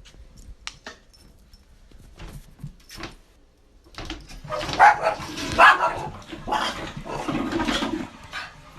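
A dog vocalizing: a few faint taps, then a loud run of short sounds through the second half.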